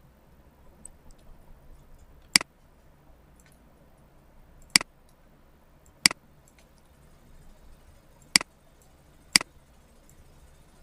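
Computer mouse button clicking five times at uneven intervals, each a single sharp click, with a few faint ticks in between.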